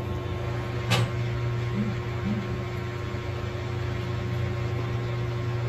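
Hot air rework station blowing steadily, a constant hum with an airy hiss, heating a phone CPU to melt its solder for removal. A single sharp click about a second in.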